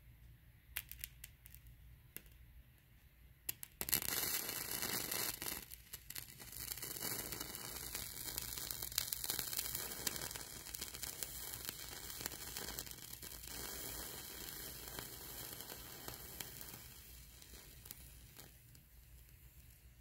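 A red wax candle, burned down into a pool of its own melted wax, crackling and sizzling at the wick. A few scattered pops at first, then from about four seconds in a steady sizzle with crackles that slowly fades near the end.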